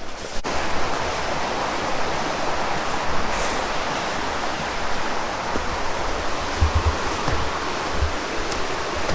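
Steady rush of fast-flowing water, coming in just after a brief break about half a second in. A few low bumps come near the end.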